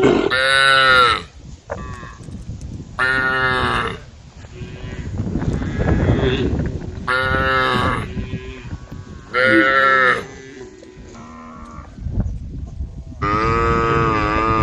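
Cows mooing: about five calls of around a second each, a few seconds apart.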